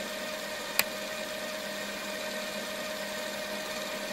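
A steady, even hum with a held tone running through it, and one sharp click a little under a second in.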